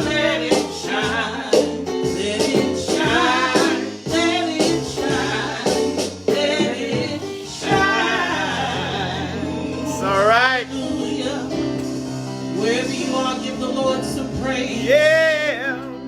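Live gospel praise-and-worship music: a singer's wavering, held notes over sustained instrumental chords, with some percussive hits in the first half.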